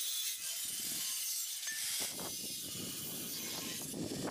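Angle grinder's abrasive cut-off disc cutting through square steel tube, a steady high-pitched hiss.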